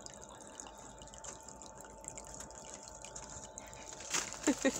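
Water trickling through a plastic toy nagashi-somen slide, a soft steady running with a faint steady tone under it. Near the end come a few short, high voice sounds.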